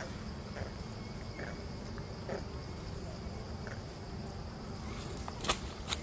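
Insects chirring outdoors in a steady high drone over a low rumble, with two sharp clicks about half a second apart near the end.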